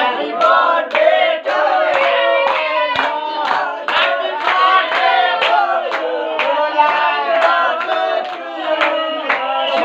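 A group of young men singing together and clapping in time, about two claps a second.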